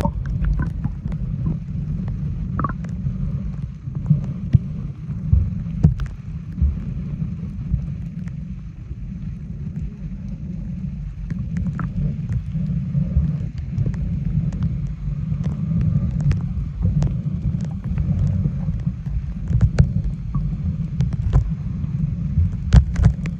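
Low, gusty rumble of wind buffeting the microphone aboard a moving boat, with scattered small clicks and knocks.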